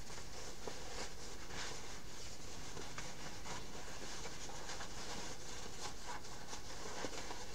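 Stiff fabric rustling and scuffing as a lined fabric basket with firm interfacing is worked right side out by hand, with faint scattered ticks, over a steady low hum.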